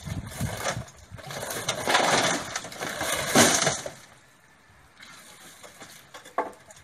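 Mud and stones from a well dig tipped out of a metal basket into a steel tractor trailer: a noisy pour lasting about two seconds, loudest about three and a half seconds in, followed by quieter scraping and a few small knocks.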